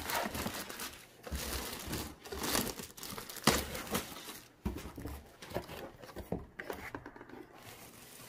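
A clear plastic bag crinkling and rustling as it is pulled off a cardboard product box, with a few sharp knocks as the box is handled.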